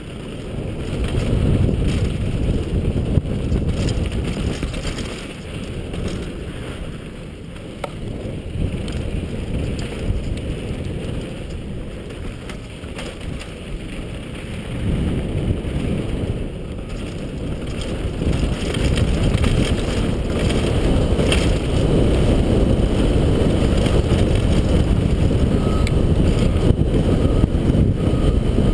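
Wind buffeting the microphone: a steady low rumble with no distinct strikes, growing louder in the second half.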